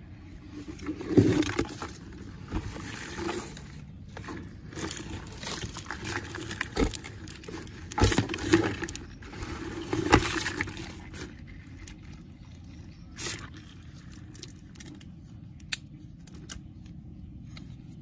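Irregular scraping, knocking and splashing as a land crab scrambles over plastic in a shallow puddle of water in a hard container. The loudest scuffles come about a second in and again around eight to ten seconds in, with a few sharp clicks near the end.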